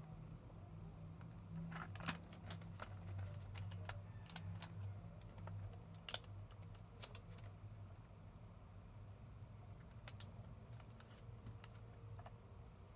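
Faint, scattered clicks and taps of small parts being handled while working on a laptop, the loudest about two and six seconds in, over a steady low hum.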